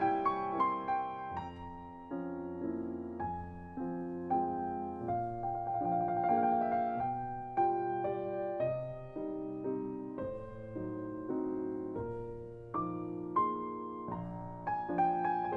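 Background piano music: gentle chords and a melody, each note struck and then fading.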